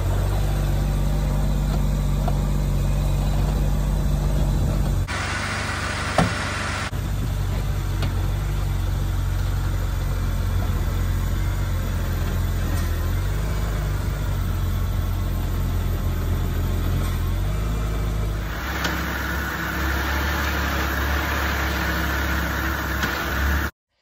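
BMW E88 engine idling while the steering is turned from lock to lock, with a sharp clunk from the steering rack about six seconds in and a few fainter pops. The owner traced these pops and clunks to a rusted, loose steering rack mounting bolt on the driver's side.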